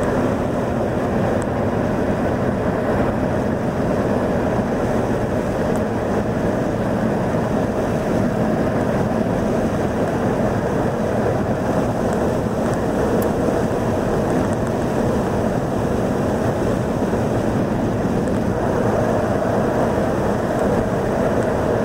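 Car cruising at highway speed, heard from inside the cabin: a steady, unchanging mix of engine, tyre and wind noise.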